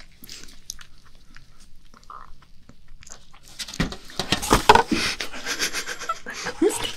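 Faint mouth and chewing sounds, then about four seconds in a burst of loud crinkling and crackling as a disposable aluminium foil tray is handled by gloved hands, mixed with breathy stifled laughter.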